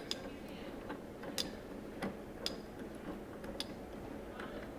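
A few light, sharp clicks and taps at irregular intervals, from the small cast-aluminium vacuum vise and the part in its jaws being handled and adjusted.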